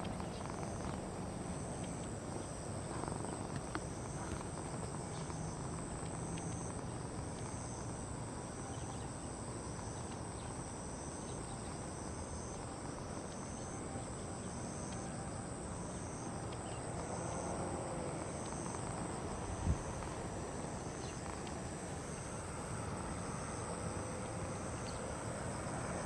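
Insects chirping: one steady high-pitched trill and another insect pulsing about once a second, with a single soft knock about twenty seconds in.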